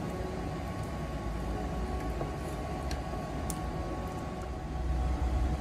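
Pot of braised pork and eggs simmering on an electric cooktop: a steady low hum with a faint steady whine and a few faint light clicks.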